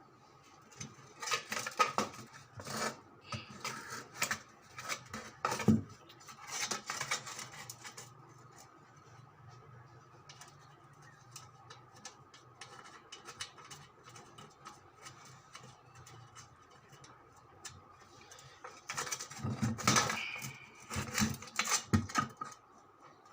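Irregular clinks, knocks and scrapes of metal parts and tools being handled, in two spells, over a faint steady hum.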